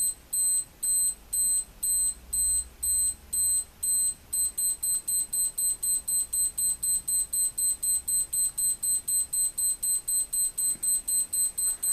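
Acctim 15877 digital alarm clock's crescendo alarm sounding: a high electronic beep repeating about twice a second, then speeding up to about four beeps a second a little over four seconds in. Quite quiet for an alarm clock.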